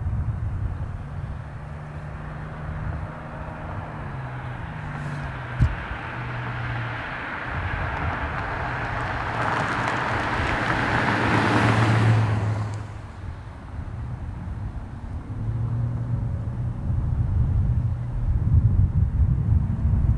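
A Buick sedan escort car drives up and passes close by, its tyre and engine noise building to a peak about twelve seconds in and then falling away quickly. Underneath runs the low drone of heavy diesel truck engines, which swells again near the end as the heavy-haul rig draws nearer. There is one sharp knock about a third of the way in.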